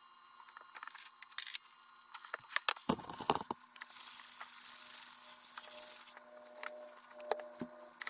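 Handling noises as the model airframe is picked up and turned, with scattered clicks and rustles, then a paper towel rubbed over the film-covered tail fin as a decal is pressed down, a steady hiss lasting about two seconds.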